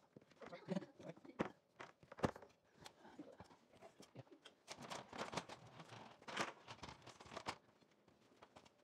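Faint, irregular clicks, knocks and rustling of hands-on work as plastic air-line tubing and an aluminium ladder are handled. The sounds come thicker for a couple of seconds past the middle.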